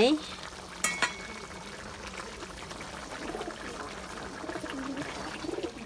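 Fish and vegetable curry simmering and bubbling in an iron wok over a wood fire; the curry is cooked. Two sharp clicks come about a second in.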